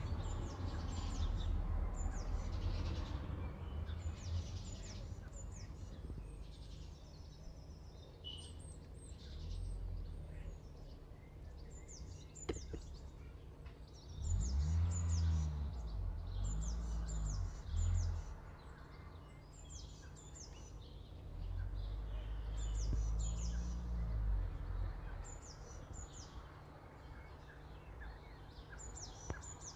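Small birds chirping, with short high calls repeating every second or so, over a low rumble that swells twice in the second half.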